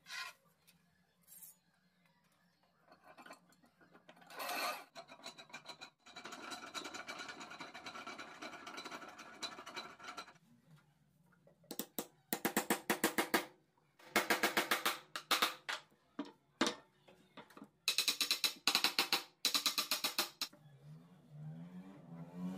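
A power tool runs with a steady whirr for about four seconds, then in three short bursts of rapid, even rattling, each one to two seconds long.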